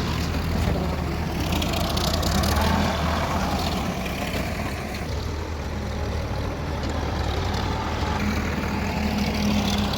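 Heavy diesel machinery engine running steadily under work, with a brief hiss about two seconds in.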